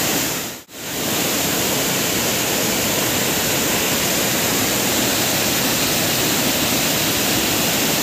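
Loud, steady rush of water spilling over a low concrete weir and cascading down a waterfall. It cuts out for a split second a little under a second in.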